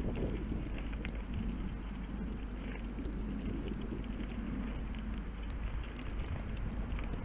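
Steady outdoor background noise with a constant low hum and faint scattered ticks.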